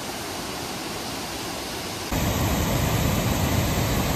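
Steady rush of flowing stream water. About two seconds in it cuts to a louder, fuller rush.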